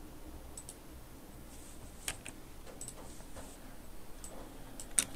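Scattered single clicks of a computer mouse and keyboard, about eight in all, the loudest near the end.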